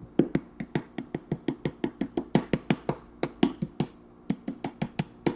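A hand repeatedly slapping the bottom of an upside-down, nearly empty Simply Heinz plastic ketchup squeeze bottle: quick hollow taps, about four or five a second, to knock the last of the ketchup out.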